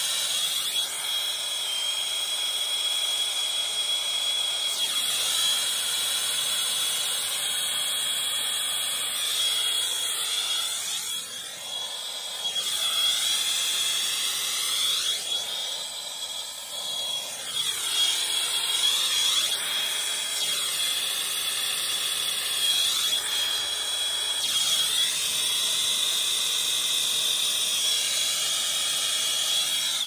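Plumber's hand torch burning, a steady hiss with a thin high whistle, its colour slowly shifting as the flame is moved over a half-inch copper sweat joint being heated for soldering.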